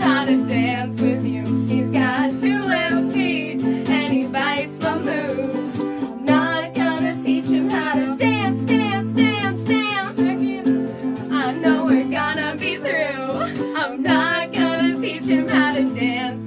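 Electric guitar and ukulele strummed together in a steady rhythm, with a woman singing over them.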